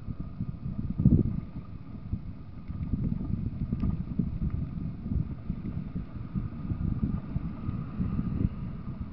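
Car driving on the road, heard through a dashcam mic inside the cabin: steady low rumble of tyre and wind noise, with a thump about a second in.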